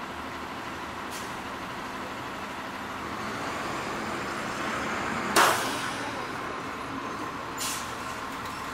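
Steady hum of street traffic, with a short, loud hiss about five seconds in and a fainter hiss about two seconds later.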